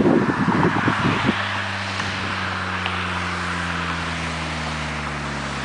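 Turbocharged four-cylinder Saab 9-3 on an open downpipe, with no exhaust past the catalytic converter, driving by. There is rough, uneven exhaust noise for about the first second, then a steady engine drone whose pitch sinks slowly.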